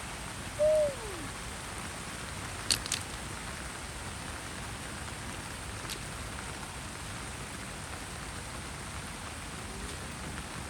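Steady heavy rain falling. About a second in, a single short call glides downward in pitch, and a few sharp ticks follow, two close together near three seconds and one near six.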